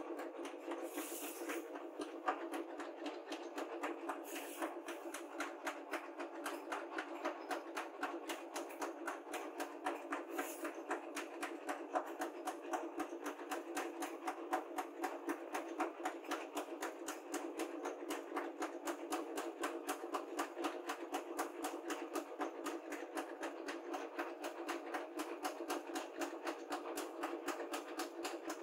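Background music with a fast, even ticking beat over sustained tones, with a brief hiss about a second in.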